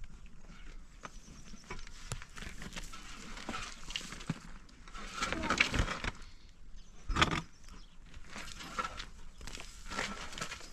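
Handling noise: rustling of a folded blanket and scattered knocks as bedding on a small wooden stool is moved, with footsteps on stony dirt. Two louder thumps come about halfway through.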